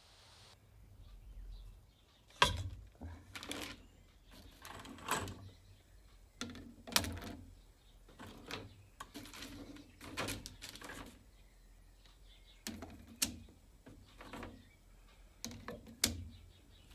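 Irregular knocks and clunks, a dozen or so spread unevenly, with a few sharper clacks, over a low background hum.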